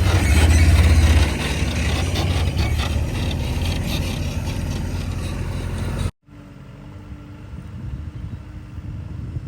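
JCB 3DX backhoe loader's diesel engine running, a loud low rumble that eases off a little about a second in. About six seconds in the sound cuts off abruptly to a quieter steady engine hum.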